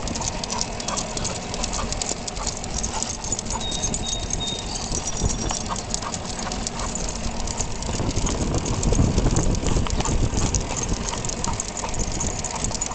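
Labrador retriever's paws and claws pattering on pavement as it runs beside a moving recumbent bike, over the steady low rumble of road and wind noise, which swells about eight seconds in for a few seconds.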